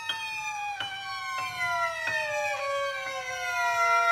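A sustained whistling tone of several pitches sliding slowly and evenly downward, with faint ticks about every half second, cutting off sharply just after the end.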